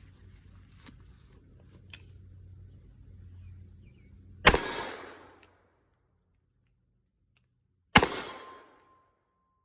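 Two shots from a Smith & Wesson Model 25-5 revolver in .45 Long Colt, about three and a half seconds apart, each followed by a short echoing tail.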